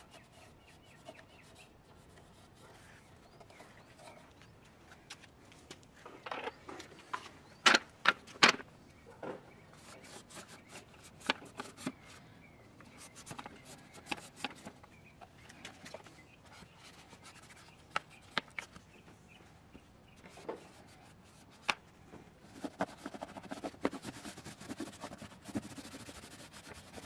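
Black plastic crankcase ventilation filter housing on a Cummins ISX engine being handled and worked loose by gloved hands: scattered clicks, knocks and scraping. Two sharp knocks come about eight seconds in, and there is a stretch of rustling near the end.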